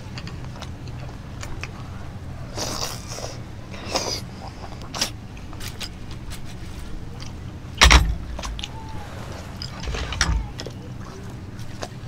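Eating and table-handling sounds: short clicks and soft mouth noises, with a heavy thump on the wooden table about eight seconds in and a lighter one near ten seconds, over a steady low hum.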